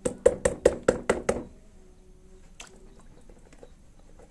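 A quick run of about seven knocks, some five a second, as a hand slaps at a black plastic basin full of water. After that the water laps faintly, with one more small knock in the middle.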